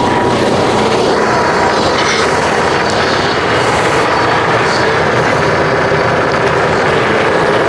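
Semi truck's diesel engine running steadily, loud and close.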